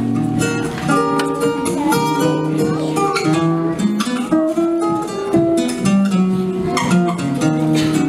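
Acoustic guitar playing an instrumental passage, a steady run of plucked notes and chords.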